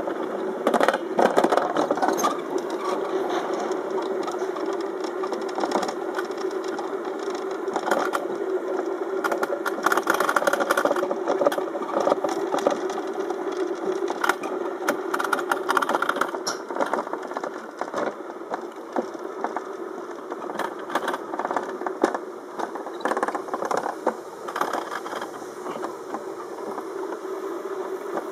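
Summer toboggan sled running down a steel trough track, heard from on board: a steady rolling rumble with frequent clicks and clattering from the sled on the track.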